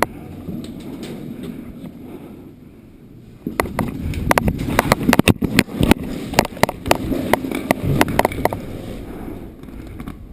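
Airsoft guns firing a rapid, irregular string of sharp cracks for about five seconds, starting about three and a half seconds in, over rustling movement noise.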